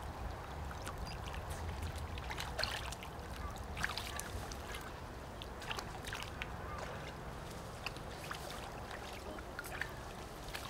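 Eurasian otter moving in shallow water in a wet rock crevice: wet splashing with irregular sharp clicks, over a low steady rumble.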